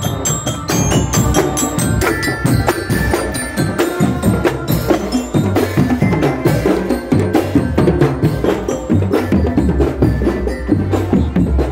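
Marching drum band playing snare drums and large bass drums in a busy, steady rhythm, with a melody of pitched notes over the drums.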